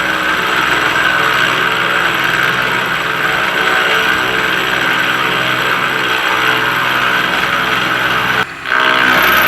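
Milling machine taking a cut with a three-insert cutter along the edge of a thick steel grader cutting edge: a loud, steady machining noise with a ringing whine. It cuts out briefly near the end and then resumes.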